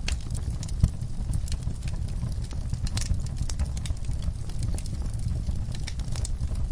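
Wood fire crackling: irregular sharp pops and snaps over a steady low rumble, with one louder pop about a second in.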